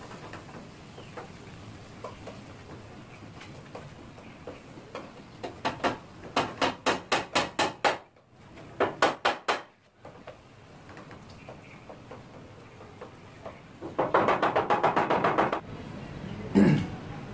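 Runs of quick, even hammer blows on the wooden work table's plank top, about five a second, then a denser, faster run, with one heavier knock near the end.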